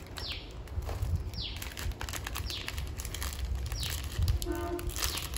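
A small bird chirping over and over, one short note falling in pitch about every second, over the rustling, clicks and thumps of boxes and packaging being handled; a brief squeak comes near the end.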